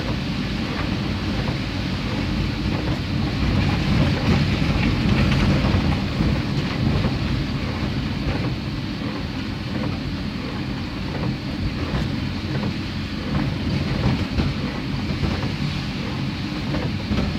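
Rain pattering on a car's windscreen and body, heard from inside the moving car over the low rumble of engine and tyres on a wet road. The rumble swells about four seconds in and eases off a couple of seconds later.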